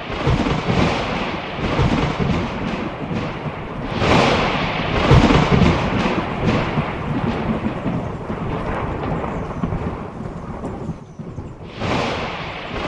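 Thunder rumbling over steady rain, with louder rolls at the start, around four to six seconds in, and again near the end.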